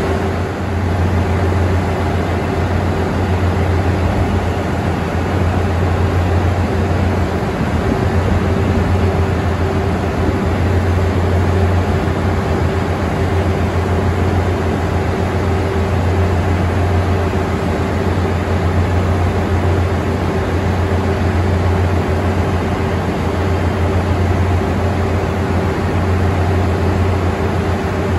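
Steady, loud, low mechanical drone with a constant higher hum running through it, unchanging throughout.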